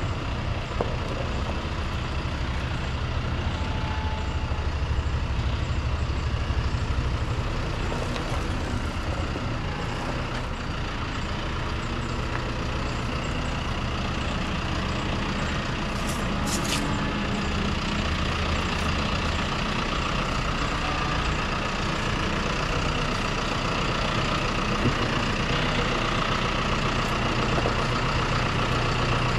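John Deere utility tractor's diesel engine running steadily at low revs as it reverses a round baler.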